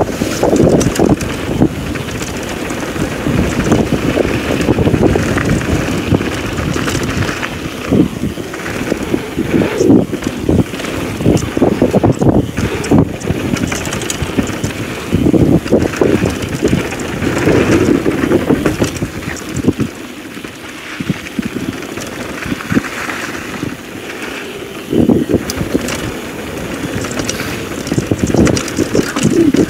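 Wind buffeting the camera microphone as a downhill mountain bike rolls fast down a gravel trail, with tyre rumble rising and falling and scattered knocks and rattles from the bike going over bumps.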